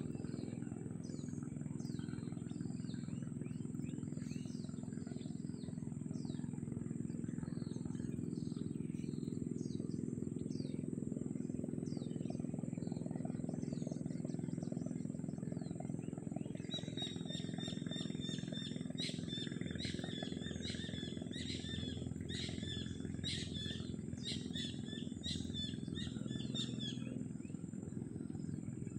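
Mangrove forest ambience: scattered high bird chirps over a steady low rumble and a thin, steady high insect tone. In the second half, from about 17 s to 27 s, a rapid, repeated series of high calls runs for roughly ten seconds.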